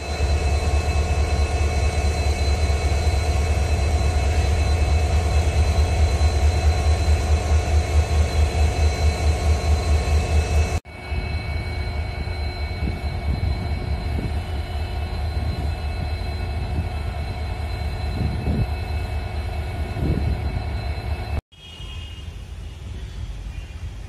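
EMD two-stroke diesel engines of WDG-4 and WDG-4D freight locomotives idling: a deep, steady rumble with a pulsing beat, loudest at first, then quieter after cuts to other locomotives a little before halfway and near the end.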